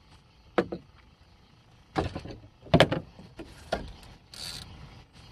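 A few sharp knocks and clunks of fishing rods and gear being handled on a boat, the loudest a little under three seconds in, followed by a brief hiss.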